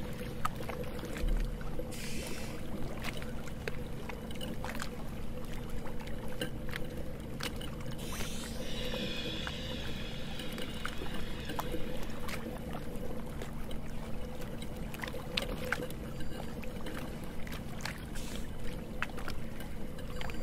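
Steady water-and-boat ambience with a low hum, dotted with many small clicks and knocks, and a brief hiss about eight seconds in.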